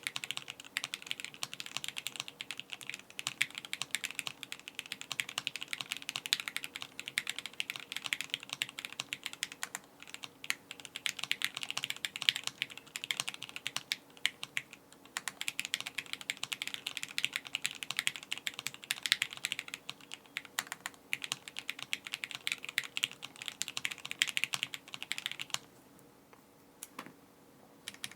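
Typing on an Alice-layout mechanical keyboard with lubed Gateron Yellow linear switches on a carbon fibre plate, with no foam in the case. Keystrokes clatter in a steady stream, stop for about two seconds near the end, then start again.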